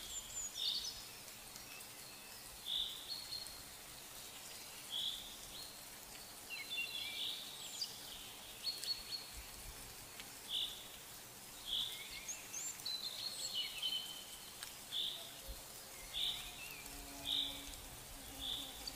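Birds calling in the background: one repeats a short, high call note every one to two seconds, with a few other chirps and twitters among them over a faint steady hiss.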